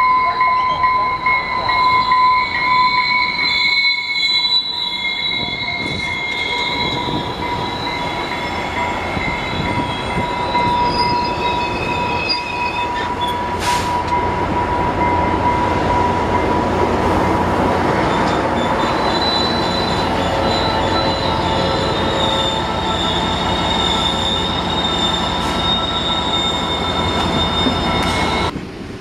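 Commuter train pulling in along a station platform: its bilevel coaches roll past with a steady high-pitched wheel and brake squeal over the rumble of the running gear as it slows to a stop. The sound turns suddenly quieter just before the end.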